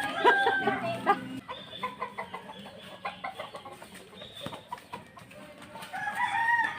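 Domestic chickens: a rooster crowing and hens clucking. The calls are loudest in the first second and a half and again near the end, with short scattered calls in between.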